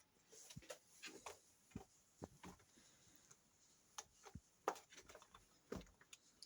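Faint, irregular clicks and light taps, a dozen or more scattered unevenly, the loudest a little under five seconds in.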